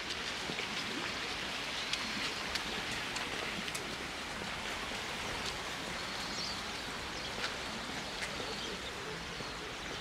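Steady rush of flowing river water, with scattered light ticks and a brief faint chirp near the middle.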